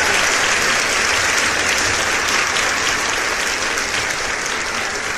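Applause from a group of people, a dense patter of many hands clapping that slowly dies down.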